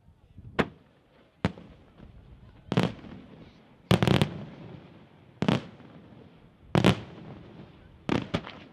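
Aerial firework shells from a Senatore Fireworks display bursting one after another, each a sharp bang with a short trailing tail. There are single bangs about every second or so, with a quick cluster of bursts about four seconds in and another near the end.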